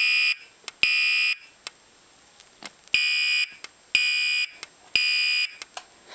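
Fire alarm horn sounding the temporal-three evacuation pattern: harsh, buzzy half-second blasts in groups of three, with a pause of about one and a half seconds between groups. Two blasts end one group, and a full group of three follows about three seconds in. A faint click comes about once a second.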